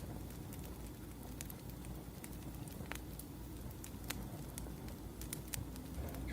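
Wood fire crackling, with irregular sharp pops and snaps over a steady low room hum.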